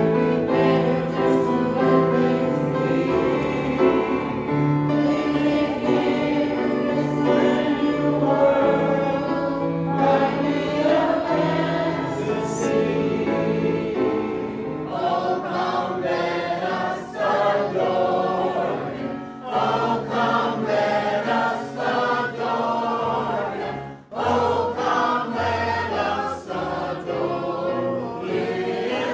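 Mixed choir of men and women singing a song with piano accompaniment, the voices in sustained, changing chords. There is a brief break about five-sixths of the way through before the singing carries on.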